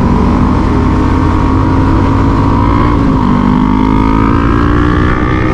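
Motorcycle engine accelerating as the bike rides, its pitch climbing, dropping briefly about three seconds in at a gear change, then climbing again, with steady road and wind noise.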